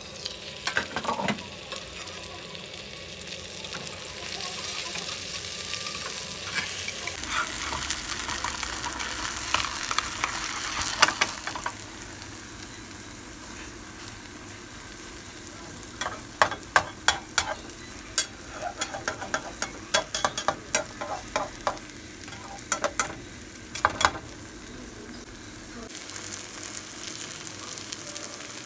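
An oats chilla frying in oil in a nonstick pan, with a steady sizzle throughout. A knock about a second in as the glass lid is lifted, and in the second half a run of sharp clicks and scrapes from a metal slotted spatula working against the pan.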